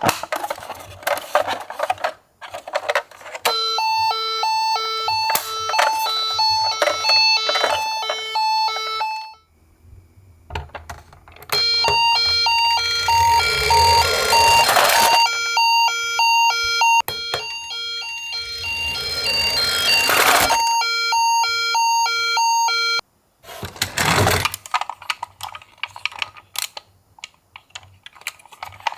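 Two-tone ambulance siren alternating high and low in a steady 'pee-paw' pattern. It sounds in two stretches, breaking off for about two seconds a third of the way in and stopping a few seconds before the end. Toy minicars clatter down a slope with many sharp clicks and rattles and a few brief rushing sounds.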